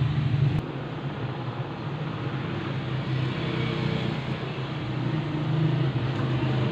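Steady low mechanical hum with a broad hiss behind it, dipping slightly about half a second in.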